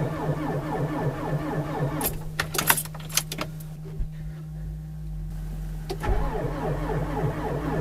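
Ignition keys jangling and clicking as the key is worked in a diesel 4x4's ignition, about two to three seconds in, between stretches of a rhythmic mechanical sound at the start and again from about six seconds.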